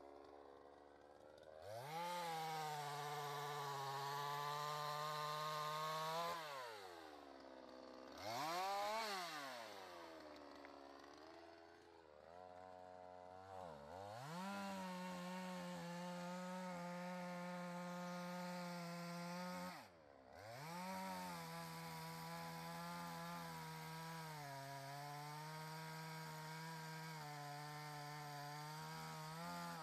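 Patriot GS142 two-stroke chainsaw cutting acacia logs: it revs up and holds full throttle through three long cuts, dropping back to idle between them. It gives one quick rev, up and down, about nine seconds in.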